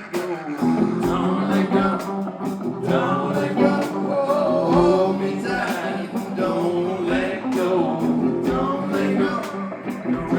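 Live rock band playing an instrumental stretch: guitar over bass and drums, with drum hits keeping a steady beat.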